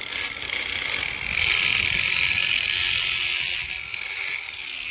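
The crooked cut end of a 4-inch plastic drain pipe being shaved down with a blade: a steady scraping that grows louder about a second in and eases off toward the end.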